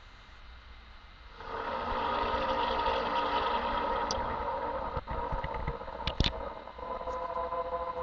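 A recording of one of the reported 'strange sounds in the sky': a drone of several steady tones over a rushing hiss, starting about a second and a half in and holding on, with a few sharp clicks near the middle.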